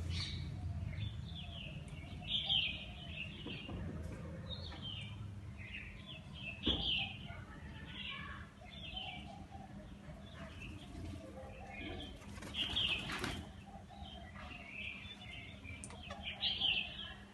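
A flock of small birds chirping steadily, with wings flapping as birds take off or land; the loudest flurry of wingbeats comes about three-quarters of the way through.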